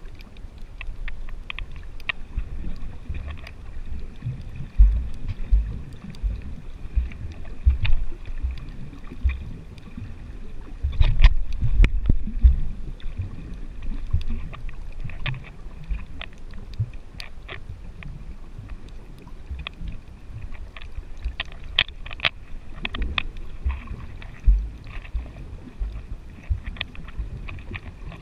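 Underwater sound picked up by a GoPro inside its waterproof housing: a muffled, irregular low rumbling and thumping of moving water, with scattered sharp clicks.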